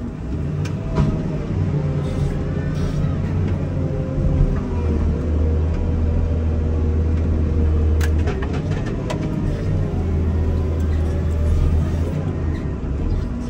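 Komatsu wheel loader's diesel engine running under load with a steady low drone, a fainter whine above it wavering up and down in pitch. A few sharp knocks come through about 8 and 9 seconds in.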